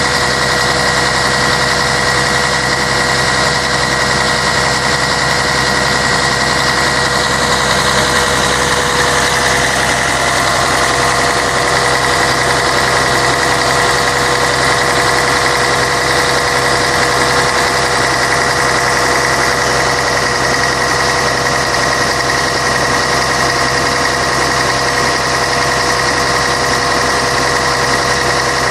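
Scania K113 bus's six-cylinder diesel engine running steadily, a constant drone with a steady high whine over it that shifts slightly about a third of the way in.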